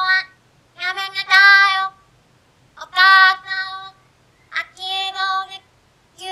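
A deaf schoolgirl's high-pitched voice reading a Japanese textbook passage aloud in short phrases with pauses between them. The vowels are drawn out and held almost like singing, and the pronunciation is strained and imprecise, the speech of someone who cannot hear herself.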